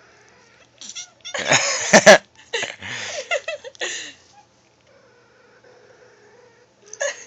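Recorded cat cries from a cat sound app played over a phone speaker: a loud, harsh yowl about a second and a half in, then a string of shorter cries until about four seconds in, and one more short cry near the end.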